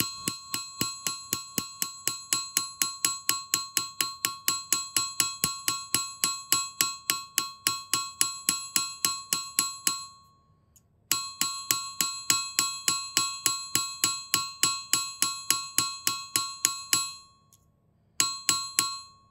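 A texturing hammer striking a small brass sheet on a steel anvil in quick, even blows, about four or five a second, each with a high metallic ring. The hammering stops for about a second near the middle and again near the end, then resumes briefly.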